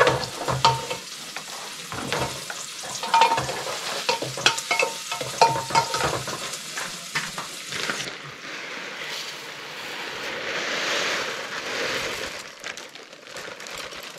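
Spoon stirring and knocking in an aluminium pot on a portable gas camp stove, with frying underneath. About eight seconds in the clicks give way to a steady hiss that swells and then fades as dry rice is poured into the pot.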